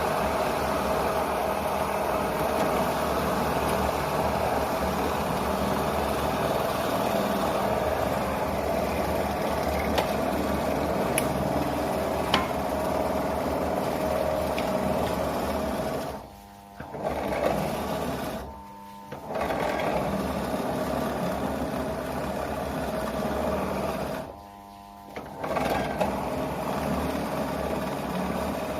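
Electric drill motor running steadily as a drill bit bores into wood, with the drill easing off and stopping briefly three times in the second half.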